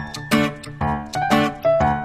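Background music with a steady beat, a sharp hit about every half second under melody notes.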